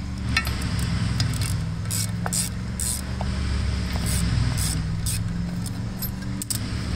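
Screwdriver prying and scraping at a steel wheel hub spacer, with metal clicks and tire-chain links clinking, in short bursts. A steady low machine hum drones underneath.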